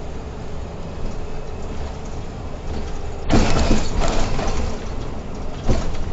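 Irisbus Crossway LE 12M bus on the move, heard from inside the driver's cab: a steady low engine and road rumble that turns suddenly louder and rougher about three seconds in.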